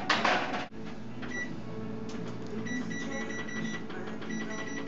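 An oven door shutting with a loud clatter that stops abruptly, then a steady hum and a run of short, high electronic beeps repeating quickly, typical of an oven control panel or timer being set.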